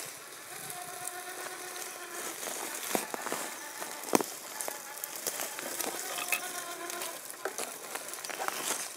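Traxxas TRX-4 G500 RC crawler crawling over dry leaf litter and twigs: the brushless motor whines steadily in two stretches, with the crackle of leaves and sharp snaps of twigs under the tyres.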